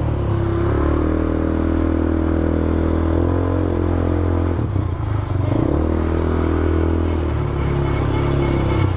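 A new 200cc ATV's single-cylinder engine running, its speed dropping about halfway through and then rising again. The engine is still in break-in.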